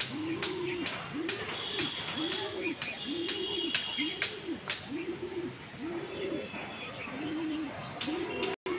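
A bird cooing: a low call that rises and falls, repeated steadily about every three-quarters of a second. Faint higher chirps and light clicks sound over it.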